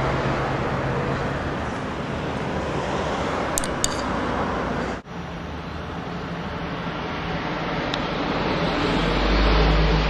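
Steady rushing noise of road traffic, with a momentary drop-out about halfway through and a deeper rumble building near the end.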